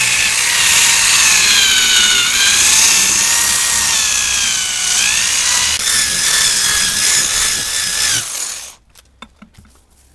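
Corded electric drill spinning a cloth buffing wheel against a fiberglass canoe deck, polishing compound into the repaired gelcoat. The motor whine dips in pitch twice and recovers, then the drill is switched off about eight and a half seconds in.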